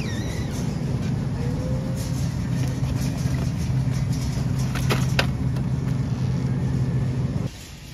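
Steady low mains-frequency hum of supermarket freezer display cases, with two sharp clicks about five seconds in.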